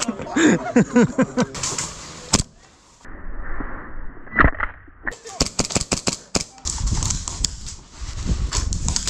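Airsoft gas pistol shots: a quick string of sharp cracks, roughly eight a second, about halfway through, followed by a steady noisy clatter. A man's voice is heard at the start.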